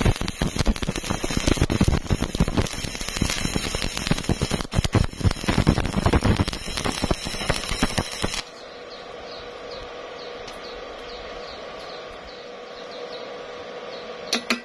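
Stick-welding arc crackling and sizzling steadily as a rod electrode lays a bead on thin galvanized steel square tube. It cuts off suddenly about eight seconds in, leaving a much quieter steady hum.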